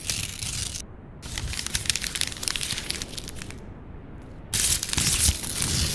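Crumpling and tearing paper sound effects in three crackly stretches with short breaks between them; the last stretch is the loudest.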